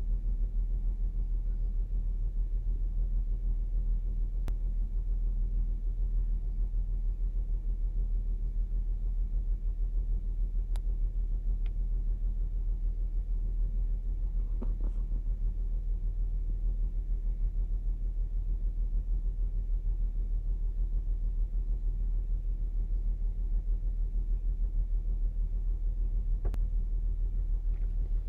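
2008 Saturn Outlook's 3.6-litre V6 engine idling with a steady low rumble, with a few faint ticks over it.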